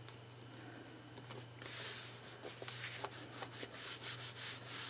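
Paper rubbing and scraping against a planner page. A longer stroke comes about a second and a half in, then a run of short strokes, a few a second.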